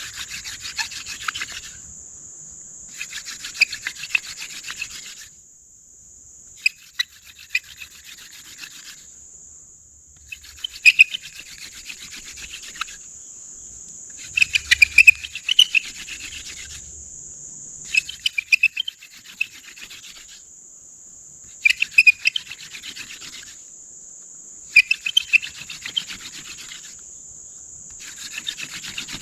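Hand-drill friction fire: a dog fennel spindle spun between the palms, grinding in the burned-in socket of a cedar fireboard in about nine passes of roughly two seconds each, with short pauses as the hands go back up the spindle, and sharp squeaks in some passes. The wood is heating toward an ember.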